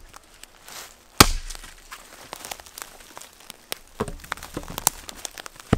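Small axe chopping a thin birch branch on a tree stump: one sharp chop about a second in, then several lighter knocks and cracks of wood near the end.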